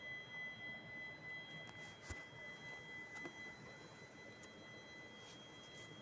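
A steady high-pitched electronic whine sounds faintly throughout. Two light handling knocks from working on the opened coffee maker come about two seconds in and again a second later.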